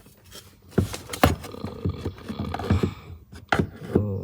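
Hand tools knocking and clicking on car parts while the fuel pump is removed: a dozen or so sharp, irregular knocks with some scraping in between.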